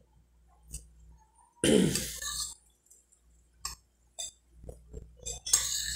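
A person eating with a metal spoon from a glass bowl: a short throat noise about two seconds in, then scattered light clicks of the spoon against the bowl and mouth sounds of chewing.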